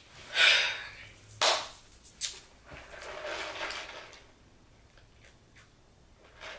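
A loud breathy sigh, then two sharp knocks and a stretch of rustling handling noise.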